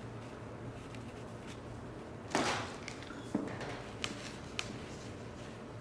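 Quiet handling sounds: fabric smoothed by hand on a padded pressing mat, then a brief swish and soft thud about two seconds in as a steam iron is brought down onto the mat, followed by a smaller knock and a few light clicks, over a low steady hum.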